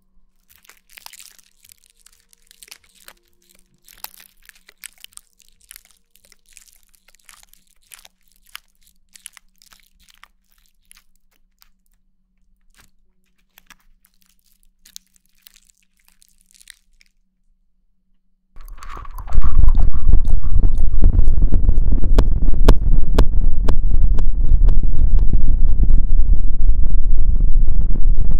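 Close-miked ASMR sounds. Faint, crisp crackling and tapping come first. After a short silence, about two-thirds of the way in, a loud, dense rumbling and scraping starts right on the microphone, full of rapid clicks, like the mic itself being rubbed and handled.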